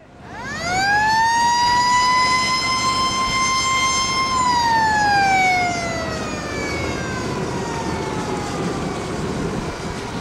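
Mechanical siren winding up quickly to a steady wail, holding for about four seconds, then slowly winding down in pitch. Underneath runs a steady background of boat and wind noise.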